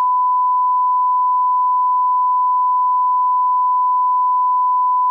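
A steady, unbroken 1 kHz test tone: the line-up reference tone played with SMPTE colour bars.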